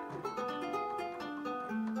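Sampled nylon-string guitar from FL Studio's FLEX 'Nylon Shimmer' preset, played live on a MIDI keyboard: a run of plucked notes, several overlapping and ringing on.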